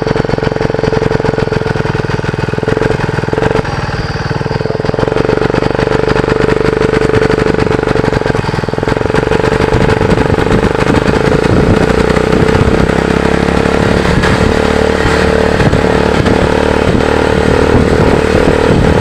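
Small single-cylinder TVS motorcycle engine running steadily with a fast, even exhaust beat, blowing through a homemade jugaad silencer made of a bottle taped onto the exhaust to make it sound like a KTM.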